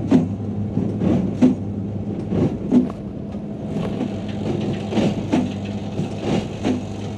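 Big square hay baler working behind its tractor: a steady engine drone with a string of knocks, roughly one every half second to a second.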